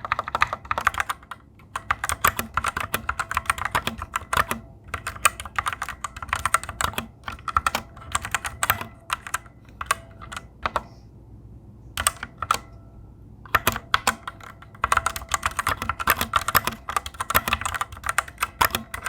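Fast typing on a Fantech Maxfit61 60% mechanical keyboard with Otemu Red linear switches: rapid key clacks with a ringing spring ping that the owner finds unusually loud for these switches. The typing thins to a few keystrokes for a couple of seconds around the middle.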